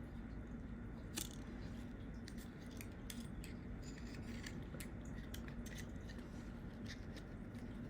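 Scattered small clicks and light scraping of a thin spatula prying at the glued screen of a GoPro Hero 10, over a faint steady hum.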